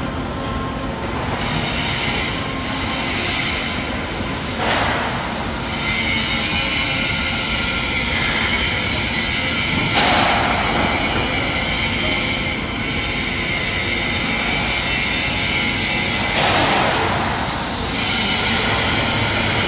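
Industrial machinery running steadily in a steel-fabrication workshop, a dense mechanical din with a few hissing surges that swell and fade every several seconds.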